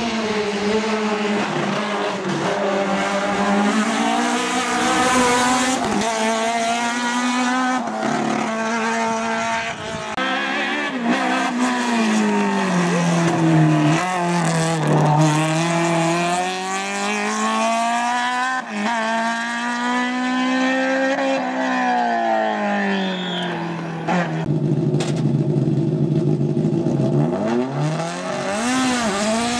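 Opel Kadett GTE hillclimb race car engine at full throttle, its pitch climbing and dropping repeatedly as it revs up through the gears and backs off for corners.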